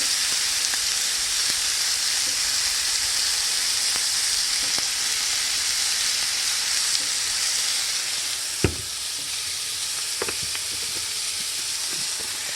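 Hamburger patties frying in a skillet, a steady sizzle. About two-thirds of the way through there is a sharp click, and a fainter one follows about a second and a half later.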